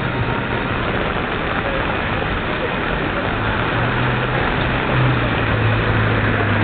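Rain falling on a city street and on umbrellas, a steady hiss, with traffic and a low vehicle engine hum that grows stronger about halfway through.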